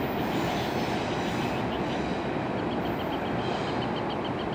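Double-stack container cars of a CSX intermodal freight train rolling past, a steady rumble of steel wheels on rail.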